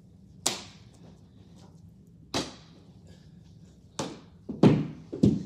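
A baseball smacking against the wall and popping into a leather catcher's mitt: five sharp knocks, two spaced out, then three in quicker succession near the end, the loudest about two-thirds of the way in.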